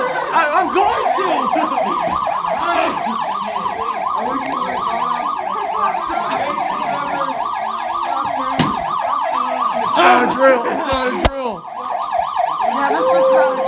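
Building fire alarm sounding a fast rising-and-falling electronic whoop, about four sweeps a second, set off from a manual pull station. A couple of sharp knocks come in the second half.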